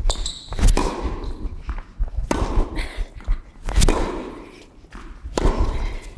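Tennis rally: a ball struck back and forth with rackets, a sharp hit about every second and a half, each followed by the echo of an indoor court hall.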